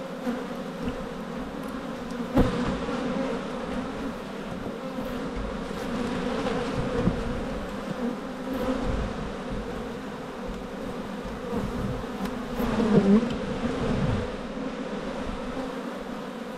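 Honeybees buzzing steadily over an opened hive box, while a steel hive tool knocks and scrapes against the wooden frames. A sharp knock comes about two seconds in, and the buzzing swells louder near thirteen seconds.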